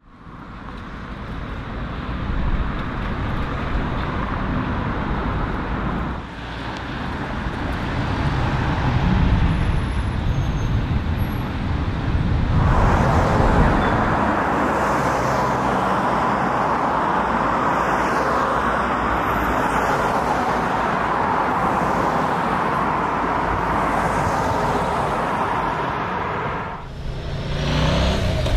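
Road traffic on a busy multi-lane city road: a steady wash of cars driving past. It fades in at the start, and its character changes abruptly a few times, about six, twelve and twenty-seven seconds in.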